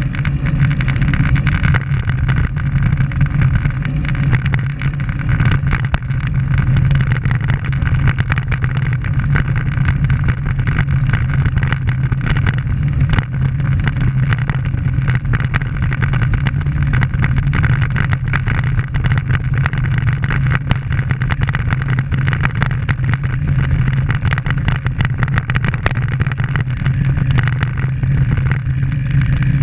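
Road bike rolling over village asphalt, heard through a bike-mounted camera: a steady low drone of wind and road rumble with constant small rattling ticks from vibration of the mount.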